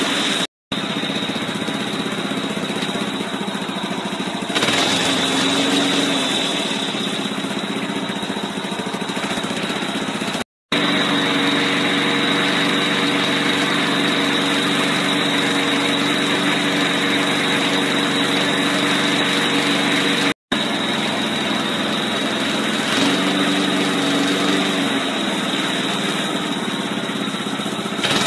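1984 Briggs & Stratton 3.5 HP single-cylinder four-stroke lawn mower engine running steadily at an even speed, burning off stale gas that had gone yellow and sour in the tank. The sound drops out for an instant three times.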